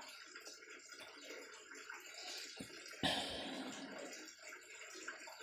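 Faint rustling and scraping of thin wires being twisted together by hand, with a louder rustle about three seconds in.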